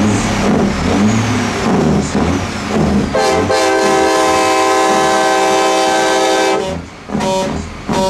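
A train horn on a show semi truck blows one long chord of several notes for about three and a half seconds, starting about three seconds in, then gives a short blast near the end.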